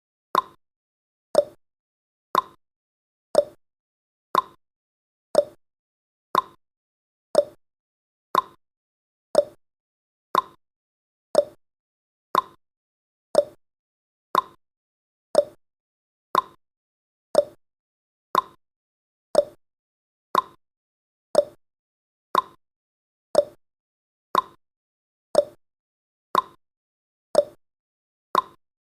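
Countdown timer tick sound effect: one short tick every second, alternating between a higher and a lower pitch like a clock's tick-tock.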